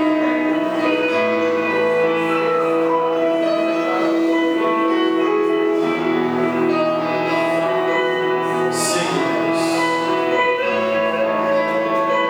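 Slow background worship music: long held chords that change slowly, with two brief hissing sounds near the middle.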